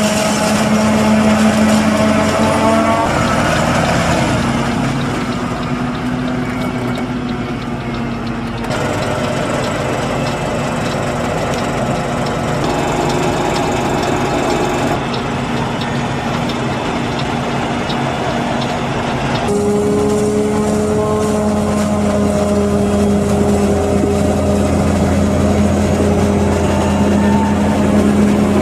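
Claas Jaguar 850 forage harvester chopping maize and blowing it into a forage wagon, with a New Holland tractor running alongside: a steady engine drone with a held whine over a dense hiss. The mix changes abruptly several times.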